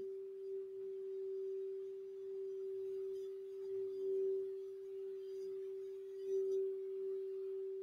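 Crystal Alchemy singing bowl tuned for the throat chakra ringing one steady tone, played with a wand. The tone swells briefly about four seconds in and again about six seconds in.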